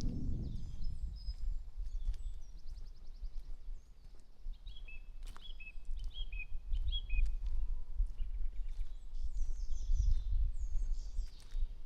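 Several small birds singing and calling: a quick trill about three seconds in, then a run of short repeated chirps, with more song near the end. A steady low rumble lies underneath.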